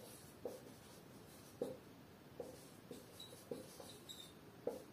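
Marker pen writing on a whiteboard: faint, irregular short strokes and taps of the tip on the board, with a couple of thin high squeaks of the marker about three seconds in.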